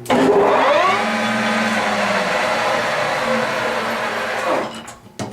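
Millport SJ-1740G lathe spindle starting up at 1,300 rpm: the pitch climbs over the first second, holds steady, then winds down about four and a half seconds in, with a sharp click near the end. It runs smoothly with no ticking.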